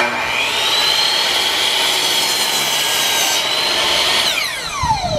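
Electric miter saw starting up with a quickly rising whine and cutting through a wooden 2x4 at a 45-degree angle. About four seconds in, the trigger is released and the blade spins down with a steadily falling whine.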